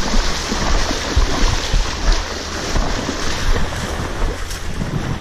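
Wind buffeting the microphone with a low, uneven rumble, over the steady wash of small choppy waves.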